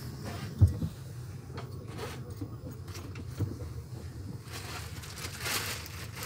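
Passenger train in motion heard from inside a compartment: a steady low rumble with a few knocks, the loudest about two-thirds of a second in. A rushing hiss rises over the last couple of seconds.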